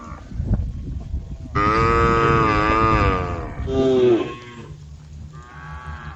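Cows mooing, calling to the herd: one long moo about a second and a half in, then a shorter call that falls in pitch, and a fainter call near the end.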